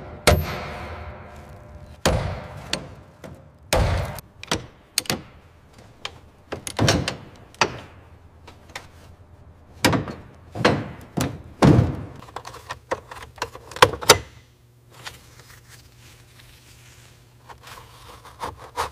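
A run of irregular heavy thunks and metal clunks, one or two a second, some with a short ring after, as corroded metal aircraft parts are knocked about and set down. The knocks stop about fourteen seconds in, leaving a faint low hum.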